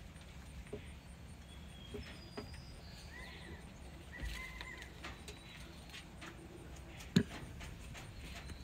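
Quiet pen ambience: faint short high bird chirps a few times in the middle, scattered soft ticks and scuffs, and one sharp knock about seven seconds in.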